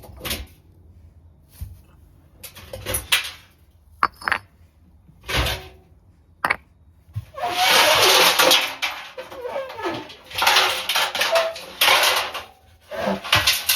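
Lamona LAM8775 washing machine being wrecked: scattered knocks and clatters for the first several seconds, then, about seven seconds in, a loud grinding, scraping racket with wavering squeals that runs in surges.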